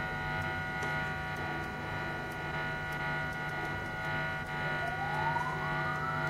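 Experimental electronic noise drone from a Zoom G1X guitar multi-effects pedal: a steady cluster of held tones over a low hum. In the last couple of seconds a whine rises steadily in pitch.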